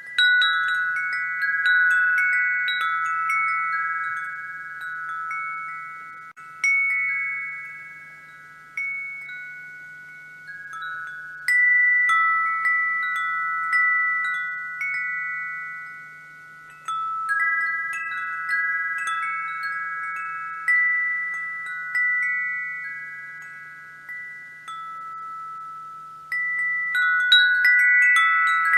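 Wind chimes ringing: clusters of several clear, high notes are struck every few seconds, and each cluster rings on and slowly fades before the next. The strikes come faster near the end.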